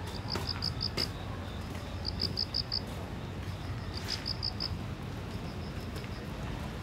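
A cricket chirping in trains of about five quick high-pitched pulses, a train roughly every two seconds, over a low, steady hum of city traffic. A few soft clicks are also heard.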